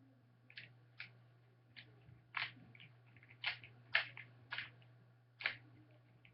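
Plastic Rubik's cube being twisted by hand: about eight short, irregular clicks and clacks as its layers are turned, over a steady low electrical hum.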